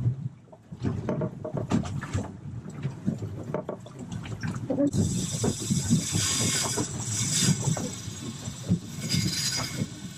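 Big-game trolling reel's drag buzzing as line is stripped off, starting about five seconds in: a wahoo running with the bait. Before that come irregular knocks and thumps around the boat.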